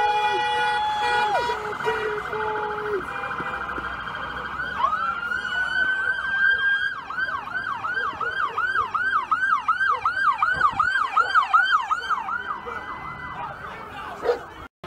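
Vehicle horn blasts in the first few seconds, then a police car siren winds up, holds its pitch, and switches to a fast yelp of about three cycles a second, stopping a couple of seconds before the end.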